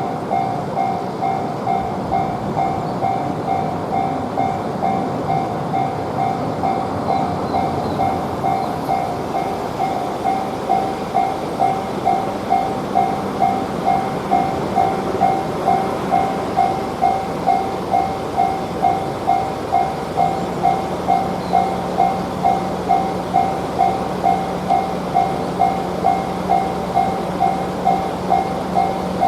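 Japanese railroad crossing alarm ringing its electronic "kan-kan" bell at about two strikes a second, louder from about ten seconds in, while a train runs past with a steady rumble and a low hum that grows stronger near the end.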